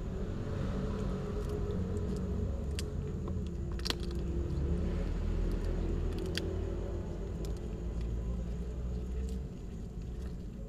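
Cats chewing food close by, with a few sharp crunches or clicks, over a steady low rumble that falls away near the end.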